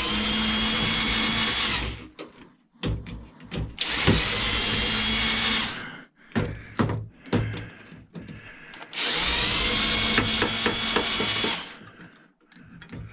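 A power drill/driver runs three times for about two seconds each, speeding up at the start of each run, as it backs out the screws holding a transformer inside a cash register. Between the runs there are clicks and light metal clatter.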